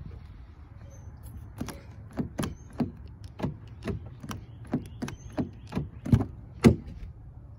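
Exterior door handle of a 2021 Cadillac XT5's rear door clicking as it is pulled again and again: about a dozen sharp clicks, roughly two a second, the last two loudest.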